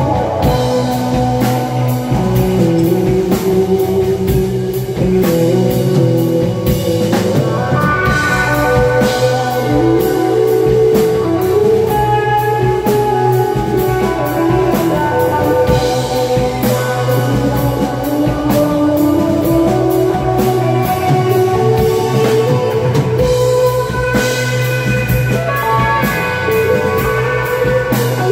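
Live psychedelic rock band playing: electric guitar holding long, sliding melodic notes over bass guitar and a drum kit with frequent cymbal hits, heard loud from the audience.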